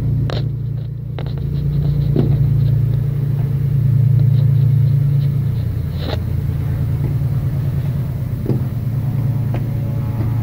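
A steady low mechanical hum, loud throughout, with a few faint clicks and taps on top.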